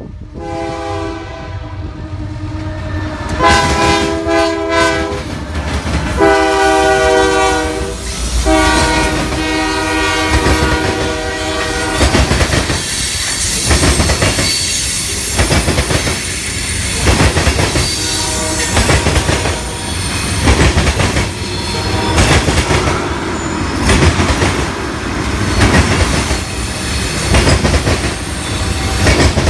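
Diesel locomotive's multi-chime air horn sounding three long blasts, the first one quieter. Then the freight train rolls by, its wheels clacking over rail joints in a steady rhythm.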